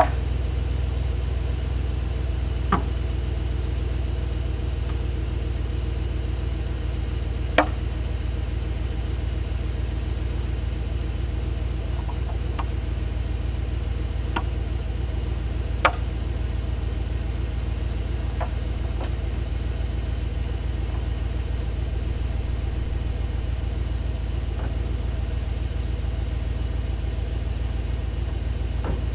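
Pickup truck engine idling steadily, with a few scattered sharp knocks and clicks from gear being loaded at the back of the truck.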